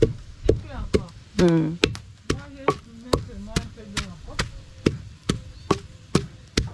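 Wooden pestle pounding oil-palm fruit pulp in a wooden mortar, with steady thuds about twice a second.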